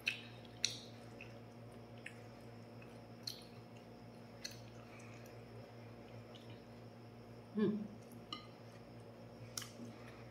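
Someone eating quietly: soft chewing and mouth sounds, with short sharp clicks of a spoon on a ceramic plate now and then and one brief low sound about three-quarters through, over a steady low hum.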